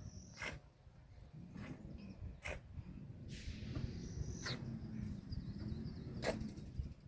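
Footsteps on open ground, a handful of separate steps at an uneven pace, over a steady high insect chirr. A low rumble grows in the background from about halfway through.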